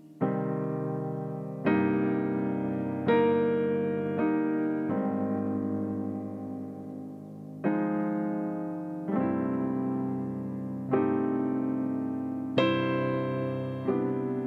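Digital piano improvising slow, sustained chords, a new chord struck every second or two and left to ring and fade before the next.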